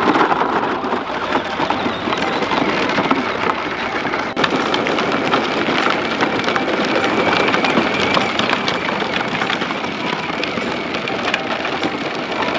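Plastic wheels of a battery-powered John Deere ride-on toy tractor and its trailer crunching and crackling over gravel, with a faint steady whine from the electric drive.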